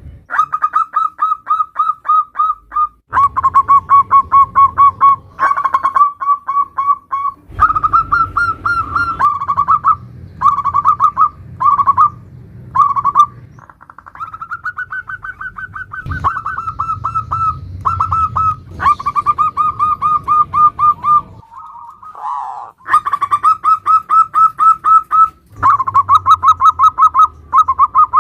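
Zebra doves (perkutut) singing nutut-style song: rapid runs of short, clipped cooing notes in repeated phrases, separated by brief pauses.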